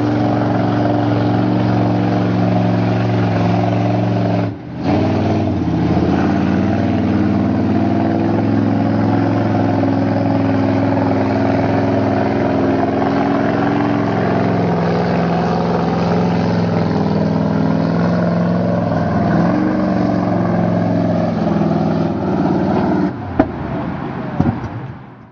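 Engine of a lifted GMC pickup mud truck running hard under load as it pushes through a deep mud pit, a steady loud drone. It briefly drops out about four and a half seconds in and falls away near the end with a few sharp knocks.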